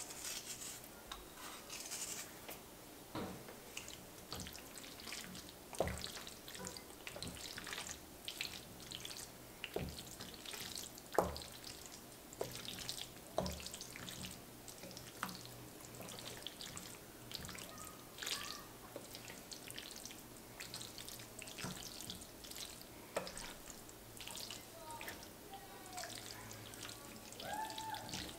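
Wooden spatula stirring thick, creamy shell-pasta mac and cheese in a ceramic baking dish: soft wet squelching and sticky smacking, with a handful of sharp clicks where the spatula knocks the dish.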